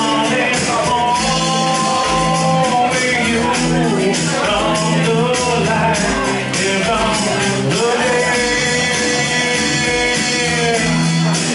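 Live acoustic rock song: a strummed acoustic guitar with a man singing long, held notes through a PA.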